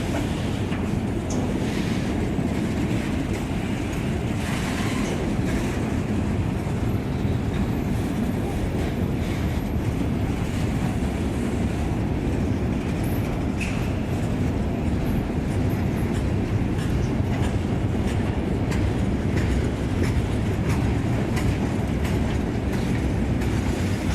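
Freight train rolling steadily past on the track, the wheels of its wagons rumbling over the rails.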